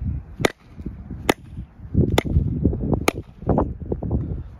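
An axe, head down on a section of steel railroad track, banged down four times about a second apart: sharp knocks that drive a glued black ash wedge into the sugar maple handle to tighten a loose axe head.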